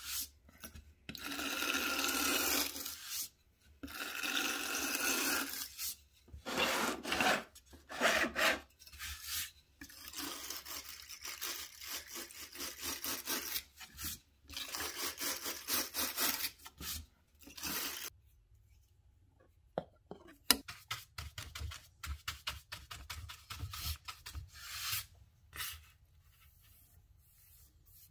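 Plywood sign being hand-sanded with a sanding pad in back-and-forth strokes, with short pauses between them. About two-thirds of the way through the sanding stops, giving way to quieter, quick light scratching and one sharp click.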